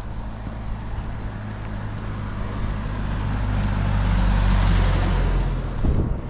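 Pickup truck driving past on a narrow road: its engine hum and tyre noise build as it approaches, loudest about four to five seconds in, then fall away quickly as it goes by.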